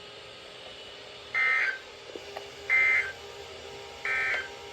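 Emergency Alert System end-of-message signal: three short bursts of high, warbling SAME data tones, the 'NNNN' code sent three times about a second and a half apart, marking the end of the alert.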